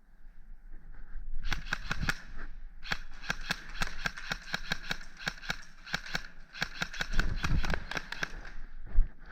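Airsoft gun firing rapid shots, several a second, in three strings with short pauses between them.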